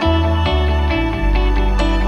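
Background music: a soft instrumental track with plucked notes over changing bass notes.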